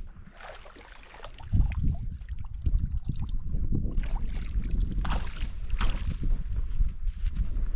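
Water splashing and sloshing around a person moving in a lake, over a heavy low rumble on the microphone that starts about a second and a half in.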